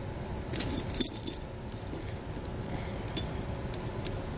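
Steel square-link tire chain clinking and rattling as its excess length is fed through the loops of the tensioning channel. A cluster of sharp clinks comes about half a second to a second and a half in, followed by scattered lighter ticks of the links.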